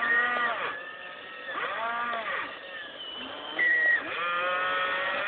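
RC excavator's motors whining as it is worked, the pitch repeatedly sagging and climbing again as the motors slow and speed up, with a brief steady higher whine near the end.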